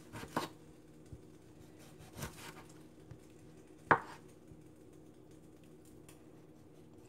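Kitchen knife cutting lemons on a bamboo cutting board: a few short, separate knocks of the blade and slices against the wood, the sharpest about four seconds in.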